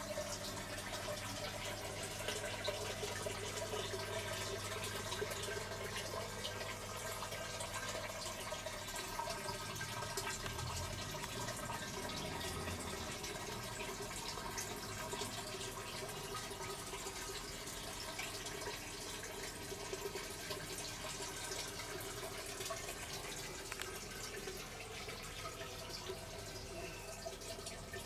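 Water trickling and dripping through a hydroponic growing system, over a steady low hum.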